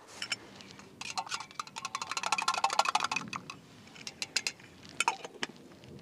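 A spoon stirring coffee in a mug, making a quick run of clinks that starts about a second in and lasts a couple of seconds, then a few separate taps near the end.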